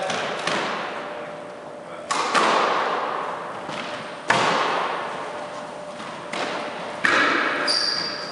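Squash ball hits echoing in a squash court: four sharp bangs about two seconds apart, each ringing on. Shoes squeak on the wooden floor near the end.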